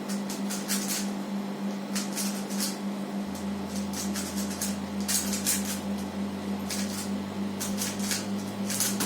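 Rubik's cube being turned one-handed during a speedsolve: quick, irregular clusters of plastic clicks as the layers snap round, over a steady low hum.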